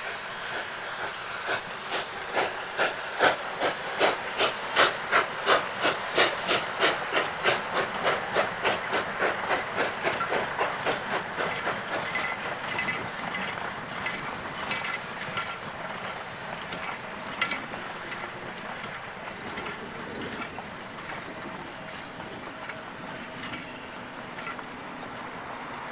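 Narrow-gauge steam locomotive pulling a freight train, its exhaust chuffing about twice a second. The beats are loudest a few seconds in, then fade into a steady hiss as the train moves away.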